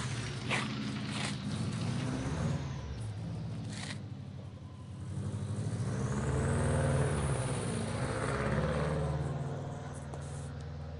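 2004 Subaru WRX's turbocharged flat-four running through an aftermarket exhaust as the car pulls away. The engine note drops off about four seconds in, rises again as it revs harder, then fades as the car moves off.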